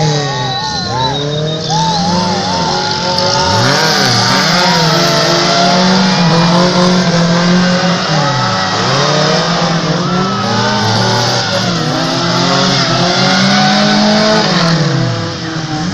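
Car engine revving up and down over and over, under a steady high hiss.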